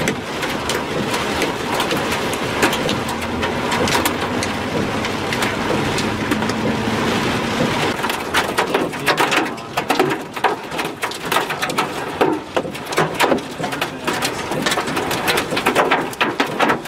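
Heavy rain and hail beating on the car's windshield and body, heard from inside the car. At first a dense, steady hiss of rain; from about halfway on, separate sharp hailstone strikes come several times a second.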